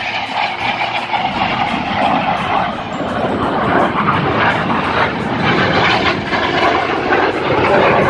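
Jet engine noise from a low-flying Red Arrows BAE Hawk display jet, a broad rushing sound that grows fuller and louder about three seconds in as the aircraft passes.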